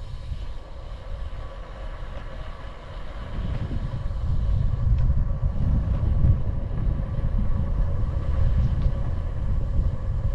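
Wind rushing over the microphone of a bicycle rider coasting downhill: a low, uneven rumble that grows louder about four seconds in.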